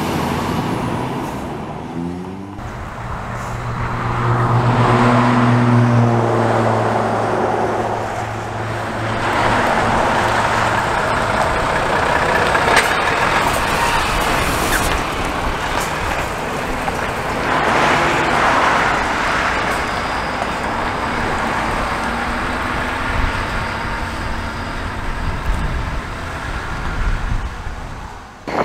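Volvo prime movers hauling race car transporter trailers drive past, their diesel engines and tyres running steadily. A low engine drone is strongest for roughly the first ten seconds, as one truck goes by.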